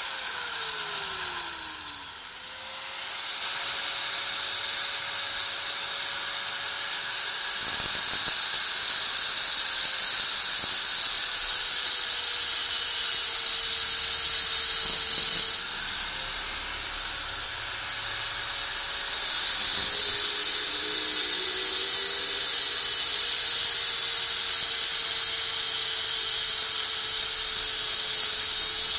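Small angle grinder running with a steady whine that sags and climbs back to speed in the first few seconds. From about eight seconds in, the disc grinds a soldering iron's copper tip with a loud hissing scrape, which breaks off for a few seconds about halfway and then resumes.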